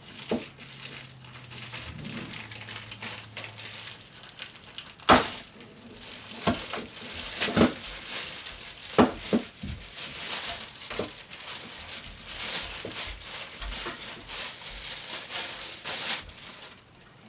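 Plastic wrapping crinkling and rustling as a power adapter is unwrapped by hand, with irregular sharp crackles and snaps.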